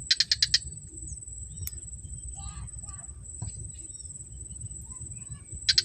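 Steady high-pitched trill of insects such as crickets, with a loud burst of five or six rapid chirps at the start and again near the end, over low rumbling noise.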